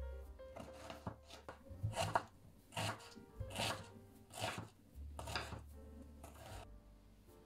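Kitchen knife dicing an onion on a wooden cutting board: crisp cuts through the onion ending in a tap on the board, roughly one every three-quarters of a second, stopping shortly before the end.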